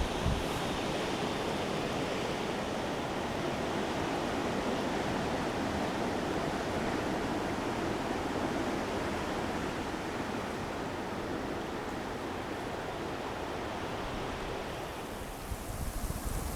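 Steady rushing noise of a coastal winter storm, with wind buffeting the microphone briefly near the end.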